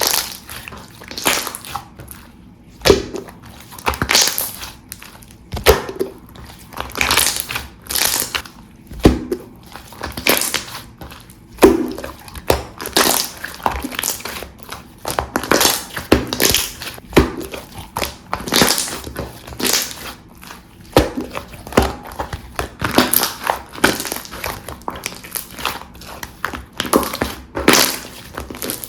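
Clear jelly-textured slime being squeezed and pressed by hand, giving irregular wet crackling squelches about one or two a second.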